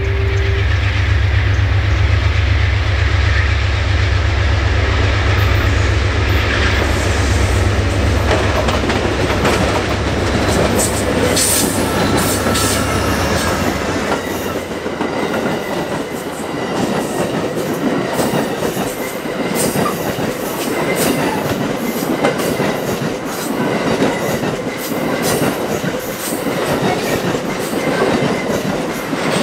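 Amtrak GE P42DC Genesis diesel locomotive passing close, its engine drumming for about the first thirteen seconds. Then a long train of baggage and Superliner cars rolls by, the wheels clicking rapidly over rail joints and crossover.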